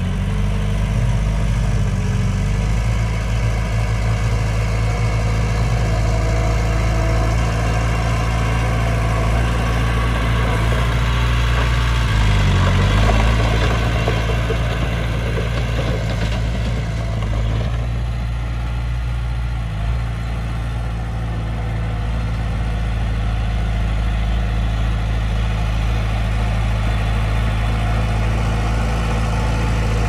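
Bulldozer's diesel engine running steadily while working sand. Its note dips and recovers briefly about twelve seconds in and changes again a few seconds later, as if taking and shedding load.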